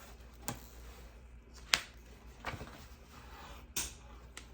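Handling noises from paper and packaging being turned over: about five short, sharp clicks and taps over a quiet room, the loudest a little under two seconds in.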